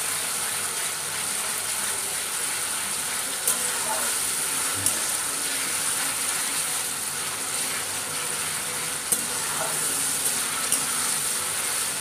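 Sliced onions and tomato paste frying in oil in a kadhai, sizzling steadily as a metal spatula stirs them, with a few sharp clicks of the spatula against the pan. The tomato paste is being cooked until its raw taste goes.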